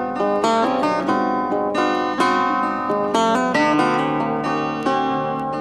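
Background music led by a plucked acoustic guitar, with a run of picked notes changing about every half second.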